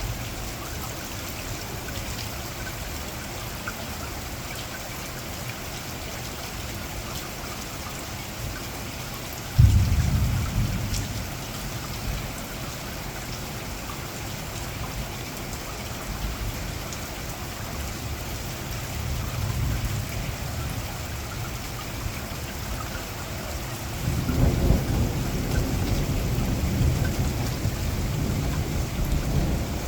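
Heavy rain falling steadily, with a sudden sharp clap of thunder about ten seconds in that rumbles away over a few seconds, and a second, longer rolling rumble of thunder starting near the end.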